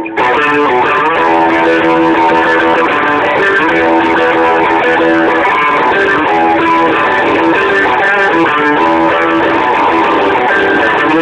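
Electric guitar, a Gibson Les Paul played loud through a Marshall amp, riffing without a break in a blues-boogie rock style, mixing repeated held notes with quick runs.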